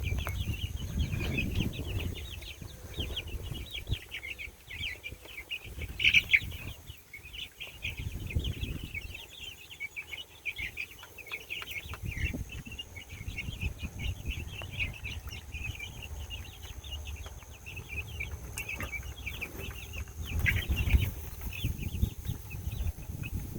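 A brood of young chickens peeping constantly, many short high chirps overlapping. Underneath is low rustling, with a louder bump about six seconds in and another near the end.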